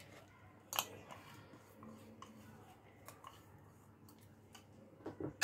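Light taps and scrapes of a small bowl against a mixing bowl as chopped ingredients are tipped and pushed out into it. There is a sharp tap under a second in, a few fainter clicks, and a louder knock near the end.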